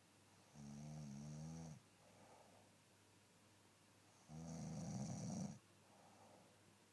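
Snoring in slow sleeping breaths: two snores about a second long each, around one second in and again near five seconds, the second louder and rougher, with softer breaths between.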